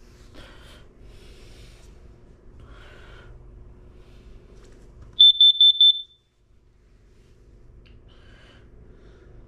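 Carbon monoxide alarm sounding on its test button: a burst of four quick, shrill beeps about five seconds in, the temporal-four pattern that a CO alarm uses, after a few seconds of faint handling noise.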